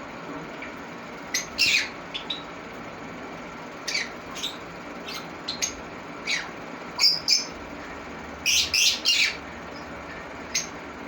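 Green conure parrots giving short, sharp chirps and squawks at irregular intervals, some dropping in pitch, with a quick run of three loud calls about three-quarters of the way through.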